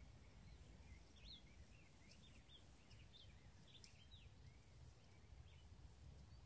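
Faint songbird singing a run of quick rising and falling whistled notes, over a low steady rumble.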